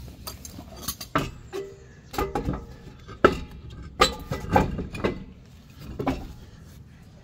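Steel wheel being hung back on a Toyota Tarago's rear hub studs and its wheel nuts started by hand: an irregular run of metallic clanks and clinks, some ringing briefly, the sharpest about three and four seconds in.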